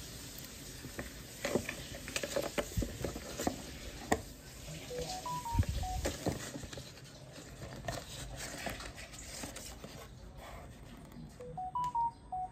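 Handling of a plastic-and-metal GPU adapter board and its flat ribbon cable in a cardboard box: scattered clicks, taps and rustles. Twice, about five seconds in and again near the end, a short electronic chime plays: a quick run of four or five beep tones that steps up and back down.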